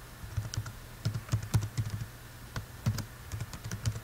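Typing on a computer keyboard: key clicks coming in short, irregular runs.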